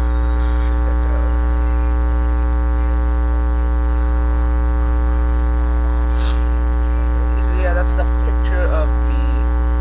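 Loud, steady electrical mains hum, a buzz with many evenly spaced overtones that does not change. Faint wavering voice-like sounds come through under it near the end.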